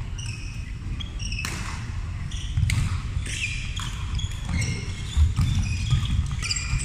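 Badminton play on a wooden sports-hall court: many short, high sneaker squeaks on the floor, sharp racket-on-shuttlecock hits, and dull footfall thuds, with a hall echo.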